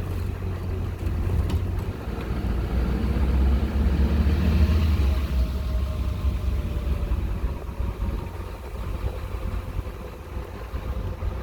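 GMC Sierra 2500HD's LB7 Duramax 6.6-litre V8 turbo-diesel truck moving at low speed, with a steady low rumble and a faint whine about halfway through. The whirring only shows up once the truck moves, and the owner suspects it comes from around the Allison transmission pan.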